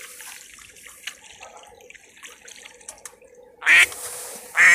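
A duck quacking twice near the end, two short loud calls close together.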